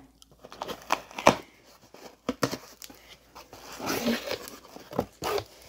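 Packaging and items being handled: scattered clicks and knocks with crinkling rustle, busiest about four to five seconds in.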